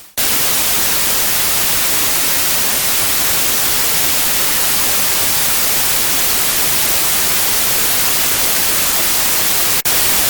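Loud, steady static hiss of white noise that starts abruptly and drops out for an instant near the end.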